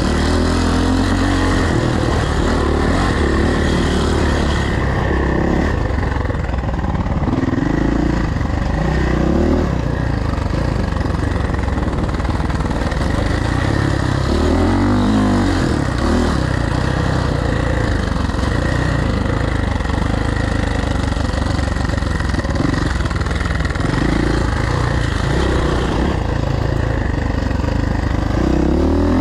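Suzuki motocross bike engine being ridden hard, revving up and dropping back again and again as the throttle opens and closes.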